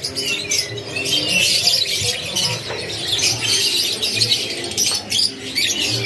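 Several local loper-series canaries in full song, a dense, fast warble of high trills and chirps, over faint background voices.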